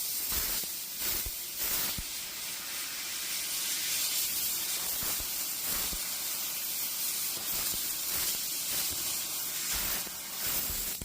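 Laser cutting machine cutting at speed, with a steady, high hiss.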